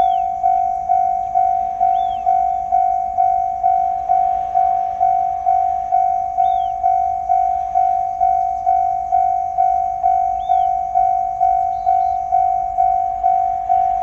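Japanese railway level-crossing warning bell ringing: a single electronic ding repeated evenly about twice a second, the crossing's alarm warning of an approaching train.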